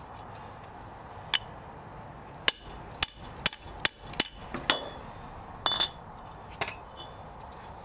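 Hammer tapping a new front differential axle-shaft oil seal into the differential housing of a Toyota 4Runner, about nine sharp metallic taps at uneven intervals, each with a short ring. The seal is being driven in bit by bit toward its 5.5 mm drive-in depth.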